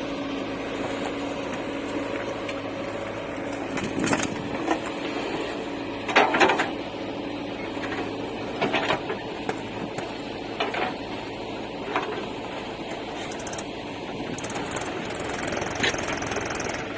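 Heavy diesel engine running steadily, with several short knocks and clanks over it; the loudest comes about six seconds in.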